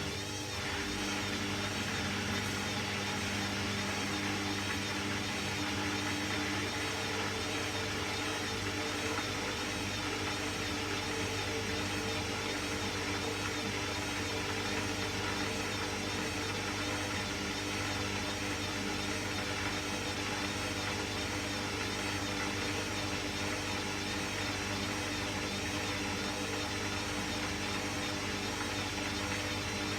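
Hoover front-loading washing machine in its final spin at up to 1000 rpm: the drum and motor run at a steady high speed with a constant whine and hum, the pitch shifting slightly just after the start and then holding.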